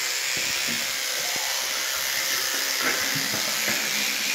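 A steady hiss, with the faint buzz of an electric toothbrush scrubbing teeth.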